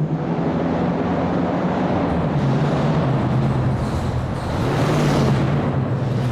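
Muscle car engine running loud and steady with a deep low drone. A rush of noise above it grows brighter about five seconds in.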